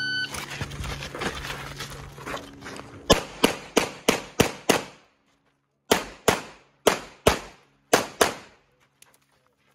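Shot timer beep, then pistol fire in a USPSA stage. After a couple of seconds of lower noise, six quick shots about a third of a second apart start about 3 s in. After a short pause six more follow, fired in pairs.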